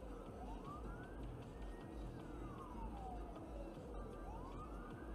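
An emergency-vehicle siren wailing, its pitch sliding slowly up, down and up again in a cycle of about four seconds, over a steady low rumble.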